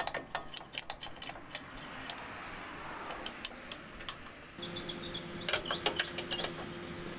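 Hand ratchet wrench clicking in irregular runs as the front shock's mounting bolts are run in. A steady hum starts about four and a half seconds in, under a quick cluster of louder clicks.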